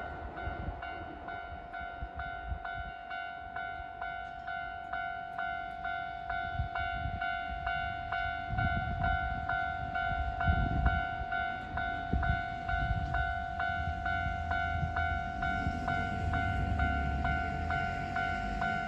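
Japanese level-crossing warning bell ringing in an even, steady rhythm of about two strokes a second, with the rumble of a passing train from about halfway through.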